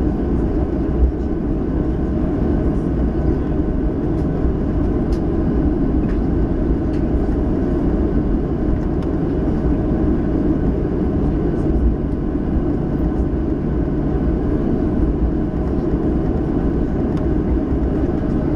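Steady cabin noise inside a Boeing 737 taxiing: an even low engine and air rumble with a few faint steady hums above it.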